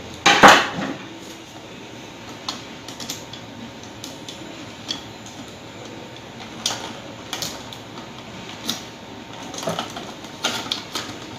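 Hand tools and electrical wires being handled while joining wires at a circuit breaker: a loud scrape about half a second in, then scattered sharp metallic clicks and taps.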